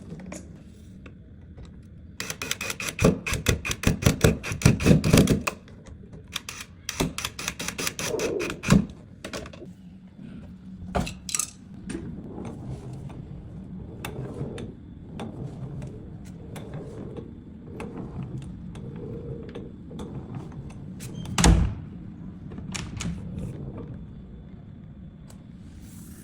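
Handwork on a door: two runs of rapid clicking, then scattered knocks and clicks, with one heavier thunk about 21 seconds in, the kind of thunk a door makes as it shuts.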